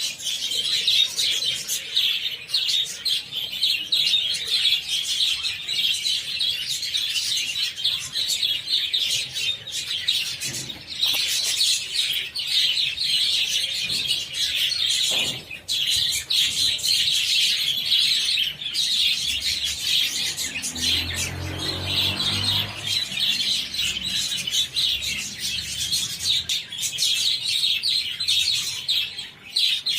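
A large flock of budgerigars chattering and chirping without a break. A brief low droning sound joins in about two-thirds of the way through.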